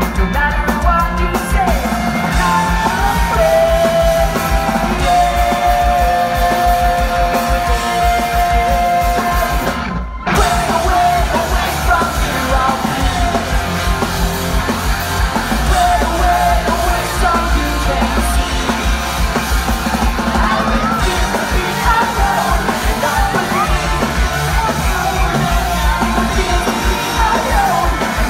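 Pop-punk band playing live, with drums, electric guitars and singing, heard loud through a phone's microphone from within the crowd. A note is held for several seconds early on, and the sound drops out for a moment about ten seconds in before the band carries on.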